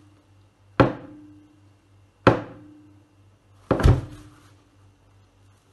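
Sharp knocks of a paper-napkin-wrapped object on a mat-covered tabletop, each with a short ringing tail: one about a second in and another about a second and a half later. About four seconds in comes a harder double slam with a brief crackle of paper as the napkin is pressed flat.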